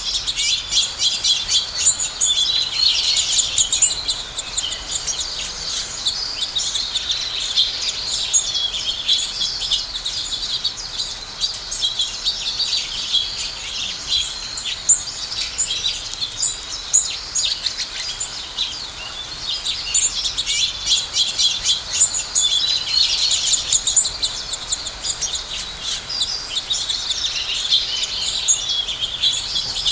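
Several house sparrows chirping at once, a continuous jumble of many short, overlapping chirps.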